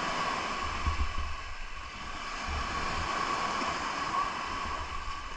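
Wind buffeting the microphone in uneven low gusts over a steady outdoor hiss, with a faint steady hum running through it.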